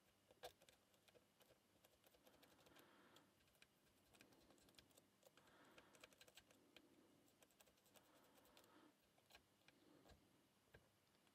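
Near silence with faint, scattered light clicks of a lock pick working the pin stacks of a five-pin Pollux 5 euro cylinder under tension. One slightly louder click comes about half a second in.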